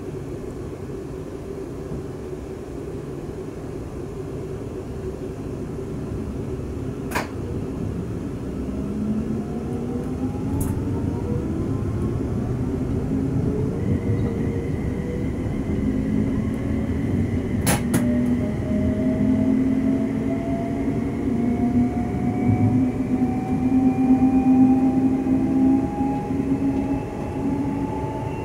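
Siemens Desiro Class 350 electric multiple unit pulling away from a station, heard from inside the carriage. The traction motor whine sets in after a few seconds and climbs steadily in pitch as the train accelerates, over a growing rumble of wheels on rail, with two sharp clicks.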